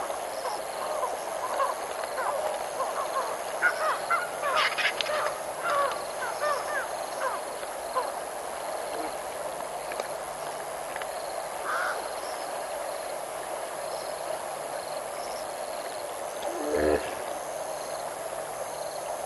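African wild dogs (painted wolves) giving their high, bird-like twittering chirps, thickest about four to six seconds in, over a steady background chorus. A single short, low call comes near the end.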